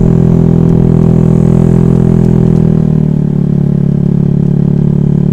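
Honda Vario scooter's engine running steadily under way, its pitch dropping slightly about three seconds in as the throttle eases.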